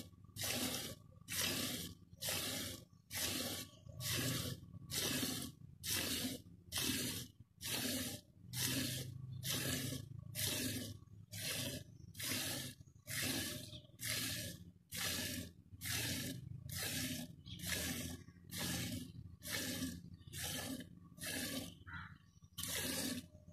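A buffalo milked by hand: milk squirting from the teats into a metal pot in a steady rhythm, a little under two hissing squirts a second.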